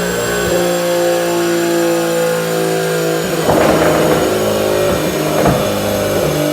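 Infiniti Q50 running through an aftermarket exhaust, holding a steady drone that steps in pitch a couple of times, with a rougher, louder stretch about three and a half seconds in.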